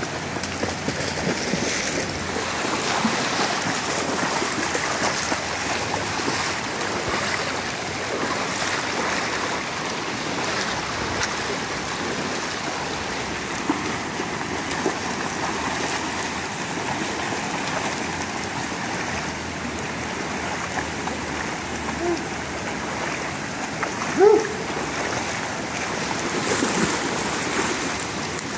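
Shallow rocky river rapids rushing steadily, with the splashing of dogs wading through the current. About three-quarters of the way through comes a short rising cry, the loudest moment.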